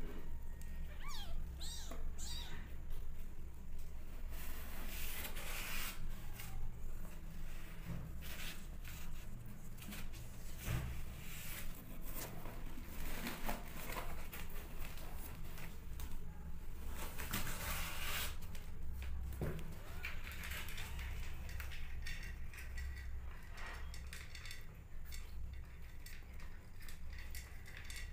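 Newborn kittens mewing, with thin high cries in the first couple of seconds, and scratchy rustling and licking as a mother cat grooms them on a blanket.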